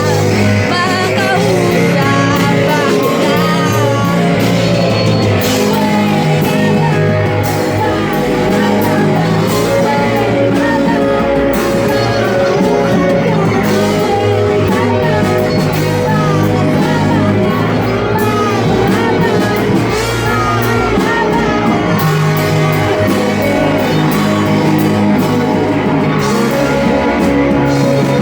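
Live rock band playing a song: a singer's vocals over electric guitar, bass and drums, steady and loud throughout.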